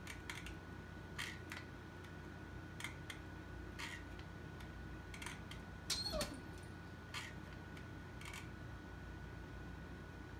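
Hot glue gun in use: faint, irregular clicks, some in quick pairs, as the trigger is squeezed and released to push out glue. About six seconds in there is a brief louder sound that falls in pitch.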